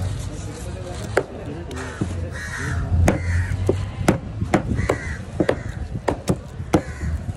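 Crows cawing again and again, mixed with about a dozen sharp clicks and taps of a heavy knife as it scales and cuts a fish on a wooden block. The knife clicks are the loudest sounds.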